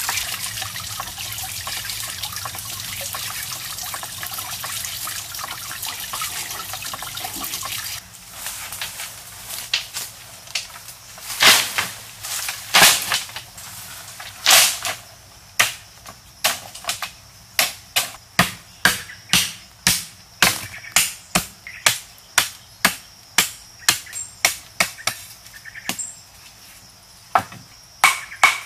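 Water trickling steadily for about eight seconds. Then long bamboo poles are dropped onto a pile with a few loud clatters, and a blade chops bamboo in regular sharp strikes, a little under two a second, pausing briefly near the end.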